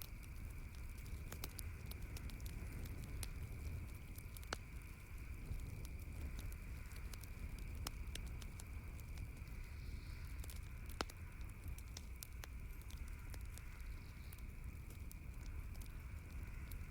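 Campfire crackling: irregular sharp pops and snaps of burning wood, over a steady low rumble. The loudest pop comes about eleven seconds in.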